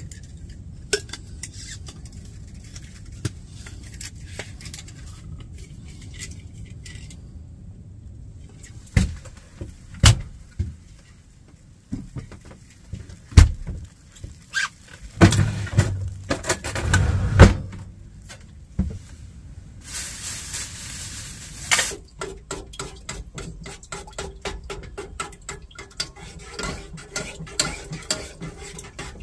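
Pots, pans and kitchen utensils clinking and knocking at a small two-burner gas stove, with scattered sharp knocks through the middle. There is a short hiss about twenty seconds in, then a run of quick light ticks near the end.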